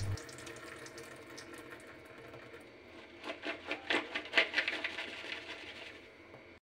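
Washed green chillies shaken in a plastic colander over a stainless-steel sink to drain, giving a quick run of soft rattles and patters about three seconds in that fade out.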